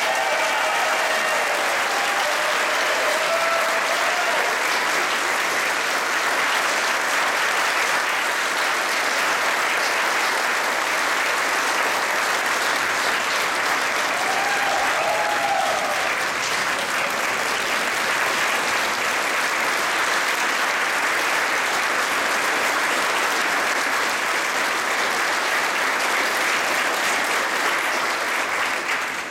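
Audience applauding steadily and long, a few voices faintly audible over the clapping near the start and about halfway through; it cuts off suddenly at the end.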